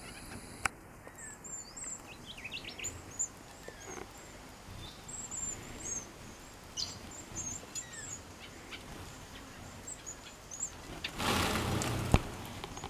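Red-browed finches at a feeder giving many short, high-pitched chirps scattered throughout. Near the end a loud rush of noise lasts about a second, followed by a sharp click.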